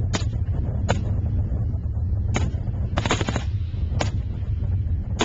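Military rifle fire: single shots about a second apart, then a quick burst of several shots about three seconds in, then two more single shots, over a steady low rumble.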